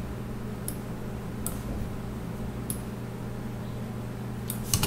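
Computer mouse clicking: single clicks about every second at first, then a quick few together near the end, over a steady low electrical hum.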